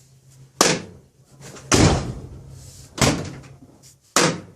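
Steel door of a 1951 Chevrolet truck being slammed and its latch knocked: four heavy metal impacts about a second apart. The latch's emergency catch sticks and has to be hit down before the door will stay shut.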